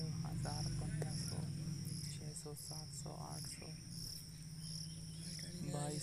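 Insects chirping in an even, pulsing chorus, with brief scattered vocal sounds over a steady low hum.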